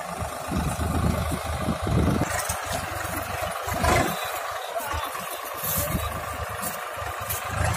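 Swaraj 744 FE tractor's three-cylinder diesel engine running as the tractor drives over rough field ground.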